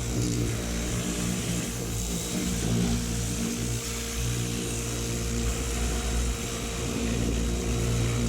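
An engine running steadily, with a high hiss over its hum.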